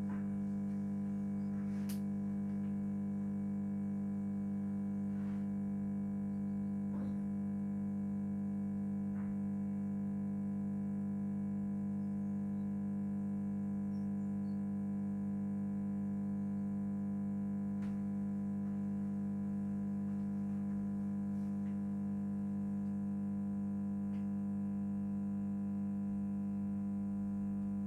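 Ballast in a Thorn light fixture humming very loudly: a steady buzzing hum with a strong low tone and many overtones above it. A few faint ticks are heard over it.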